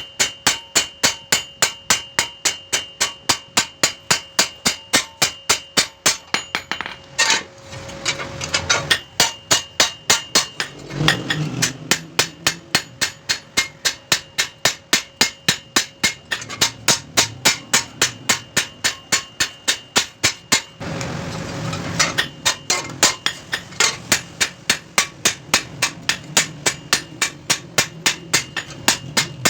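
Hand hammer striking a steel chaff cutter blade, metal on metal, in a fast even rhythm of about three to four blows a second, each blow ringing. The blade is being hammered as part of sharpening it. The rhythm breaks briefly twice, about a quarter of the way in and again past two-thirds.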